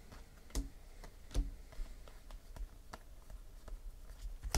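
2017 Panini Classics football trading cards being flipped through by hand, the card stock snapping and sliding against the stack in a string of light, irregular clicks, with a sharper click near the end.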